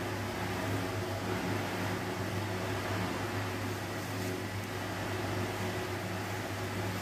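Steady low hum of a running electric appliance, with an even hiss over it.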